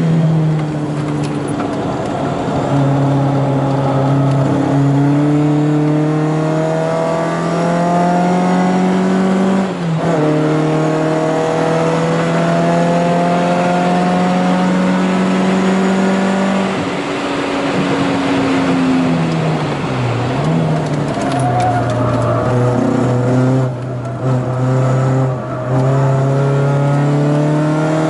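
Volkswagen Scirocco Mk1 GT's four-cylinder engine heard from inside the cabin at speed, its pitch climbing steadily in long pulls. Gear changes break it about ten seconds in and again around seventeen and twenty seconds, and the sound dips briefly twice near the end.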